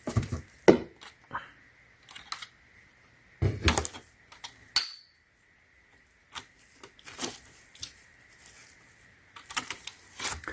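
Socket organizer being handled: irregular hard clicks, knocks and rattles as the release is pressed to pull a socket holder off its rail, with a brief pause in the middle. The holder is stuck and does not come free.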